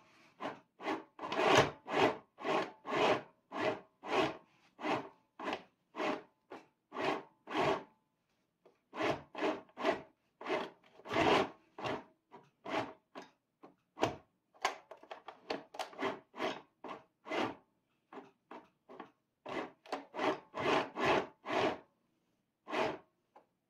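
Compact electric sewing machine stitching slowly through thick layered denim in short rasping bursts, about two a second, with brief pauses about eight and eighteen seconds in.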